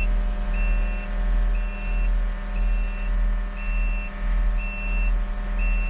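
A skid steer's backup alarm beeps steadily, one half-second beep about every second, over its engine running under load.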